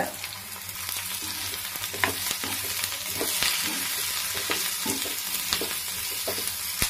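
Sliced onions, garlic and whole spices sizzling in hot oil in a kadai as a wooden spatula stirs them, with a steady hiss and a run of short scrapes and knocks of the spatula against the pan.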